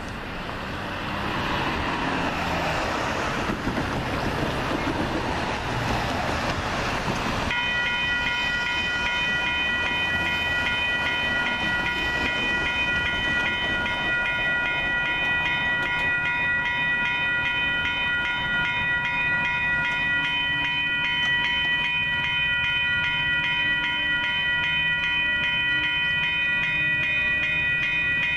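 Railroad grade-crossing warning bells start ringing about a quarter of the way in and keep up a steady, evenly pulsing ring, the crossing activating for an approaching train. Before the bells, road traffic noise.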